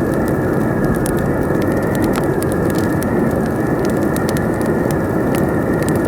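Campfire crackling with frequent sharp pops over a loud, steady rushing of wind.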